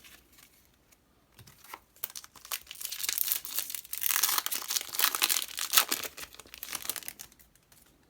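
Foil Yu-Gi-Oh! booster pack wrapper being crinkled and torn open by hand: a run of crackling starting about a second and a half in, loudest in the middle and dying away near the end.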